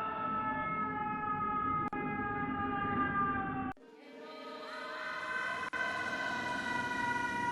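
A woman's long drawn-out call of "Keloğlaaan!" altered by a voice effect. Each take is held on one pitch and sags slightly. The first breaks off suddenly a little past halfway, and a second effected take glides up and holds about a second later.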